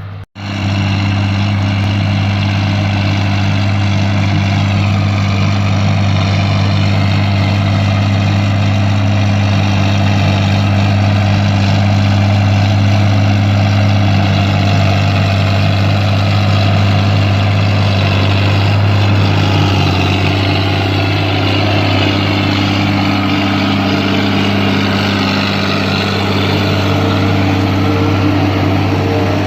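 John Deere 4430's six-cylinder diesel running steadily under load while powering a John Deere 3950 forage harvester chopping corn, the engine drone mixed with the harvester's running noise.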